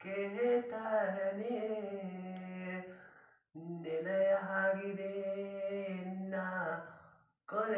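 A young man singing alone with no accompaniment: two long phrases of drawn-out, held notes, with a short silent break about three and a half seconds in.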